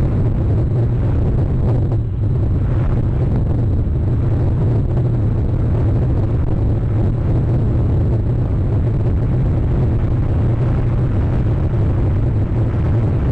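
Wind buffeting an outdoor camera microphone: a steady, loud, low rumble with a hiss above it and no let-up.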